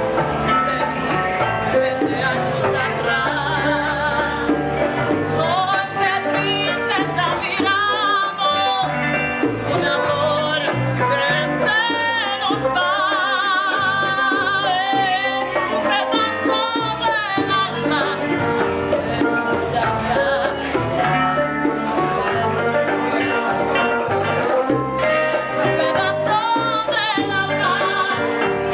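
A woman singing a Cuban bolero live, her voice wavering with vibrato on the held notes, over a small band of acoustic guitars, congas and maracas.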